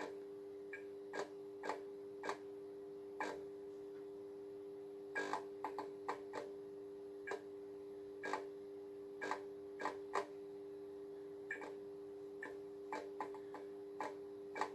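End-of-life Philips TLD 18W/33 T8 fluorescent tube failing to stay lit: irregular sharp clicks, sometimes in quick clusters, as the lamp circuit keeps restarting the worn tube. The clicks sound over a steady ballast hum.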